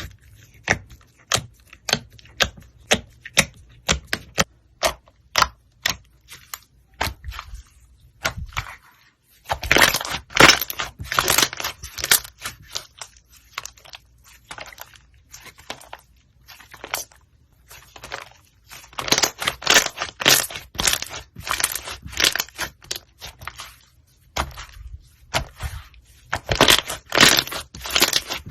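White slime with brown balls mixed in, being pressed and squished by hand, making crisp clicks and crackles. There are single sharp pops about twice a second at first, then three longer spells of dense crackling.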